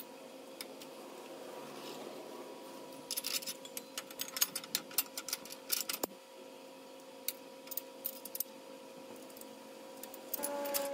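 Light metal clicks and clinks as a rear track bar bracket and its sleeve are handled and fitted onto a Jeep's rear axle, with a cluster of taps in the middle and one sharp click about six seconds in, over a steady background hum.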